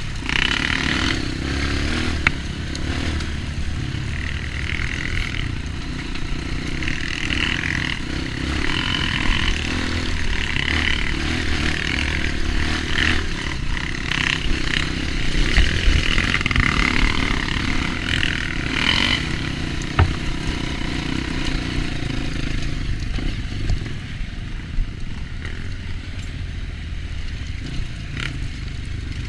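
Dirt bike engine running on a trail ride, its revs rising and falling every second or two as the rider works the throttle. The bike clatters over rough ground, with one sharp knock about twenty seconds in.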